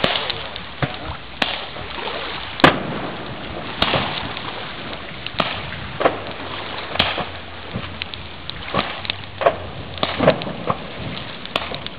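Fireworks going off across the water: about a dozen sharp, irregular bangs and pops, each with a short echo, the loudest about two and a half seconds in, over a steady rushing background.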